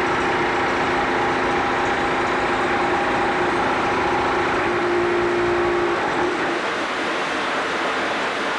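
Concrete block-making machine running: a steady mechanical din with a held hum over it that stops about six seconds in.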